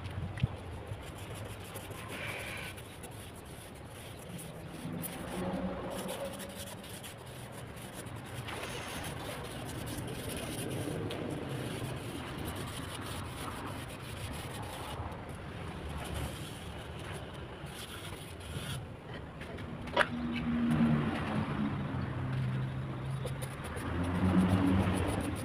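Hand tools scraping and smoothing wet cement mortar along the edge of a wooden mould, over a steady background noise, with a sharp click about twenty seconds in.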